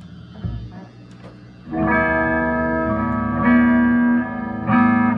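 Guitar music begins about two seconds in: loud chords that ring and sustain. Before that there is only a low steady hum and a couple of soft knocks.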